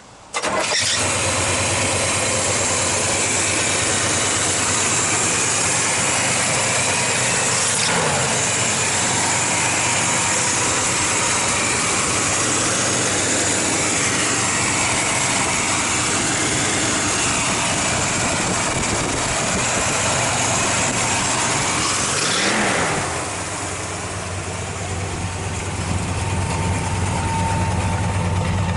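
1969 Pontiac GTO's V8 starting about half a second in and then running steadily at idle. It is briefly revved and let fall back twice, about eight seconds in and about twenty-two seconds in, after which it runs a little quieter.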